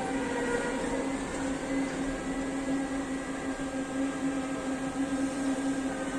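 Vancouver SkyTrain car running, its linear induction motor drive giving a steady low hum with several fainter steady tones above it over even rolling noise.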